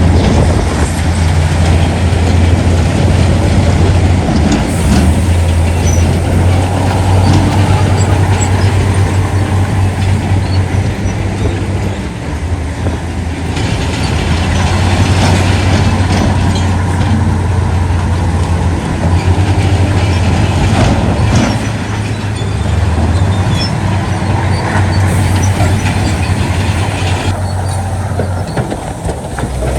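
Heavy earth-moving machinery (bulldozer, dump trucks and excavators) running steadily with a deep, continuous engine hum and scattered knocks and rattles.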